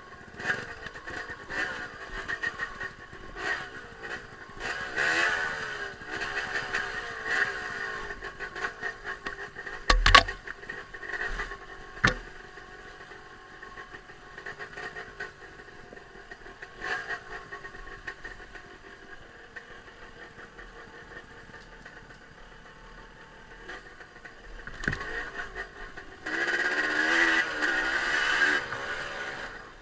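Off-road trail motorcycle engines revving, pitch rising and falling, swelling twice and loudest near the end. A couple of sharp knocks about a third of the way in, the first the loudest sound.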